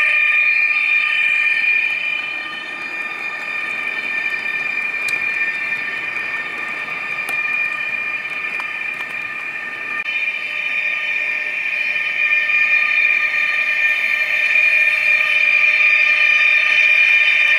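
Sound decoder of a Trix BR 147 (TRAXX AC3) H0 model electric locomotive playing a steady electric traction whine through its small speaker, over the rumble of model wheels rolling on track. The whine drops back about two seconds in while the freight wagons roll by, with a couple of light clicks, and comes back strongly about ten seconds in.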